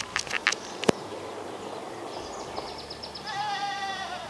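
A few sharp clicks in the first second, then about three seconds in a wavering animal call, bleat-like and about a second long, falling slightly in pitch.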